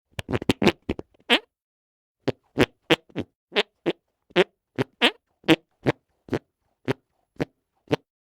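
Armpit farts: a quick cluster of about six in the first second and a half, then after a short pause a steady run of about fifteen short ones, roughly two a second.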